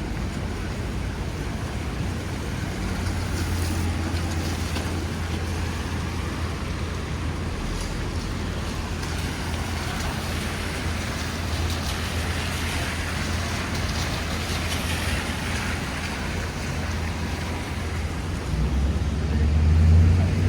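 Rainy city street traffic: a steady wet hiss with the low rumble of engines running under it. A vehicle passes louder near the end.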